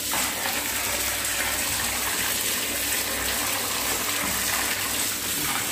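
Steady stream of tap water pouring and splashing into a plastic basin of fish as they are rinsed and moved about.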